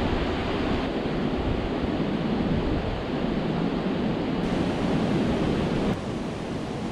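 Steady rush of river water pouring over a weir and churning in the weir pool, with a low rumble of wind on the microphone underneath. The level steps down a little about six seconds in.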